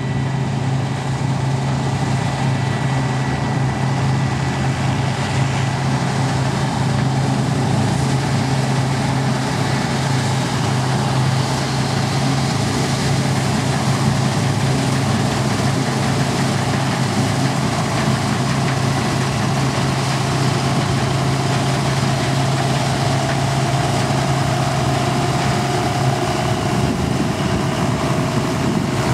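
Diesel engines of a combine harvester and a John Deere tractor running steadily under load, a constant low hum with a wide rushing machine noise over it. A faint higher whine comes in about three quarters of the way through.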